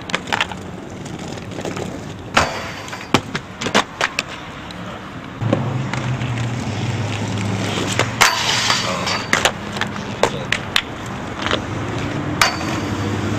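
Inline skate wheels rolling on pavement, with repeated sharp clacks and scrapes as skates hit and grind a metal handrail. A low steady hum starts about five seconds in.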